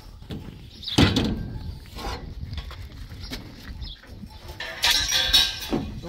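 A heavy knock about a second in, with a short ringing tail, then a few lighter knocks and a scraping, rustling noise near the end.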